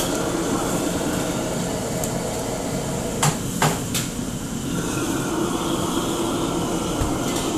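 Steady noise of a commercial kitchen wok station: a gas wok burner flaming under the extractor hood. Three sharp knocks come about three to four seconds in.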